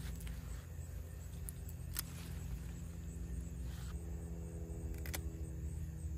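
Hand pruning shears snipping okra pods from the stalk: a couple of sharp clicks, the clearest about two seconds in and another about five seconds in, over a steady low hum.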